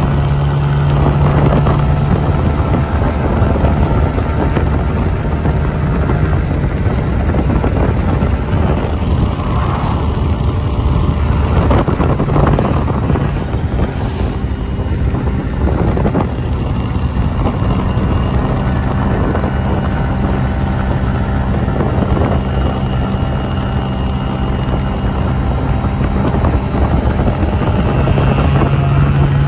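Mondial Wing 50i scooter's 50cc fuel-injected engine running steadily at a cruise of about 44 km/h, with wind buffeting the microphone.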